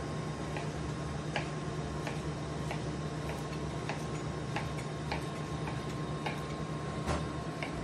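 A chef's knife chopping swordfish loin into cubes, the blade knocking on the cutting board in sharp clicks about every half second. A steady low hum runs underneath.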